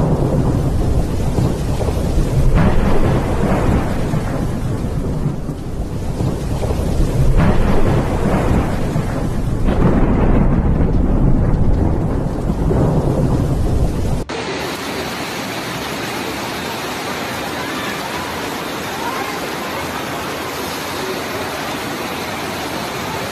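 Heavy rainstorm: a loud, uneven low rumble over the noise of rain. About 14 seconds in, the sound cuts suddenly to an even, steady hiss of rain and running floodwater.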